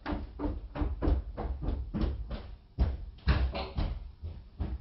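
Quick footsteps, about four steps a second, growing fainter toward the end as they move away.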